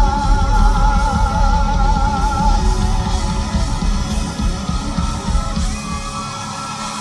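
Live rock band with electric guitar playing the closing bars of a song, with held, wavering notes over heavy bass and drums. The low end drops out about six seconds in, leaving a sustained note ringing as the song winds down.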